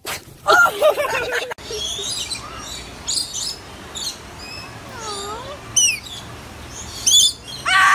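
A loud wavering cry in the first second and a half, then a rainbow lorikeet perched on a hand giving repeated high chirps and sharp screechy squawks, loudest near the end.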